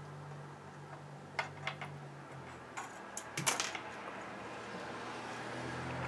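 A few light clicks and taps from hands working bench electronics gear, bunched together about a second and a half to three and a half seconds in. A faint, steady low hum sits underneath.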